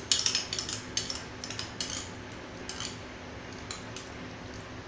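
A spoon clinking and scraping against a small ceramic bowl as beaten yogurt is scooped out into a pan. The clicks come thick in the first couple of seconds and thin to a few scattered ones after, over a steady low hum.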